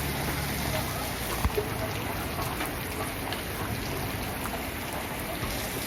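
Steady rain falling, with water dripping and a couple of sharper drop knocks about one and a half seconds in.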